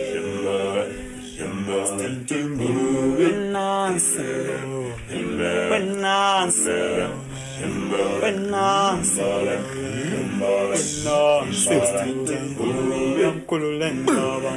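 Background music: a song with male voices singing.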